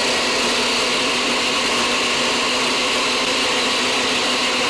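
A homemade battery-powered mixer grinder's motor runs a vacuum-cleaner attachment, giving a steady motor whine over rushing air.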